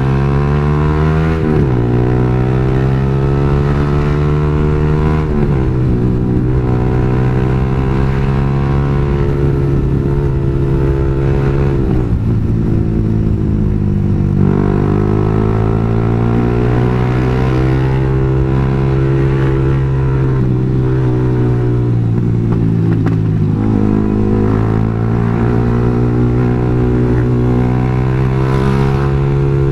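Yamaha R15 sport bike's single-cylinder engine running under way. Its pitch climbs and drops sharply about three times in the first twelve seconds as it accelerates and shifts up, then rises and falls gently at a steadier speed.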